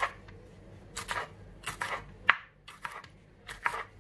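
Chef's knife chopping green Charleston peppers on a wooden cutting board: uneven strokes of the blade knocking on the board, roughly one every half second, with one sharper knock about halfway.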